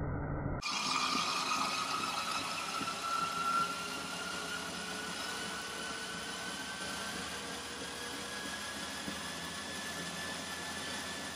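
Motorised treadmill running, its motor whine slowly rising in pitch as the belt speeds up, along with the whir of a wooden model biplane's wheel-driven propeller spinning on the belt. It starts abruptly about half a second in.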